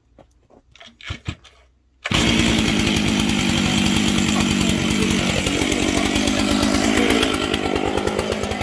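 Chainsaw: a few short sounds, then the engine catches suddenly about two seconds in and runs loudly and steadily. Its pitch sags for a couple of seconds in the middle, then comes back up.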